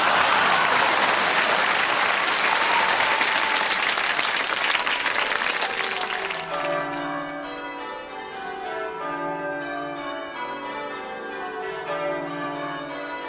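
Audience applause for about six seconds, dying away into music of ringing, bell-like held notes.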